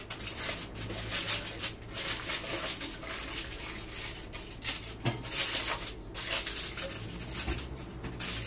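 Aluminium foil crinkling and rustling as it is folded and pressed down over the edges of a baking tray, in irregular crackles.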